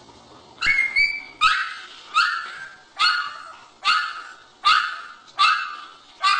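A puppy barking in a string of short, high-pitched yaps, about nine of them, roughly one every three quarters of a second, starting just under a second in.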